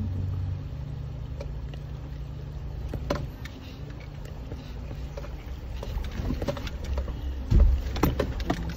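Suzuki Jimny's engine running steadily at low speed, heard from inside the cabin. From about two-thirds of the way through come knocks and thumps as the vehicle jolts over the stony riverbed, the loudest a heavy thud near the end.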